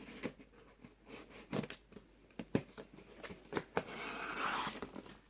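A cardboard parcel being opened by hand: scattered scratches and taps on the cardboard, then a longer rasping tear about four seconds in.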